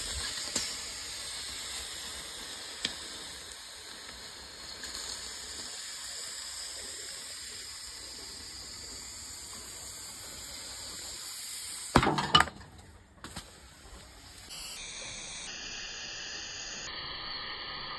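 Lithium iron phosphate battery cell venting with a steady hiss and sizzle, broken by a short, loud burst of crackling pops about twelve seconds in.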